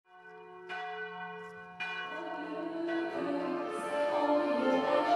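Church bells ringing: a few struck strokes with long ringing tones in the first two seconds, then music fades in and grows louder over them.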